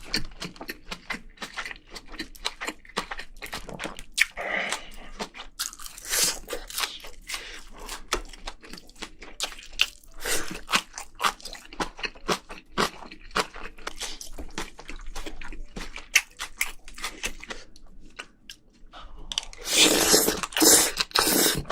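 A person chewing and crunching mouthfuls of spicy braised seafood in many short, sharp bites, with a louder, denser run of crunching near the end.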